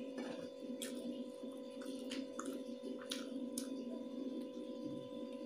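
Close-up eating sounds of a person chewing chicken biryani and a boiled egg: irregular wet mouth clicks and smacks, about one or two a second, over a steady low electrical hum.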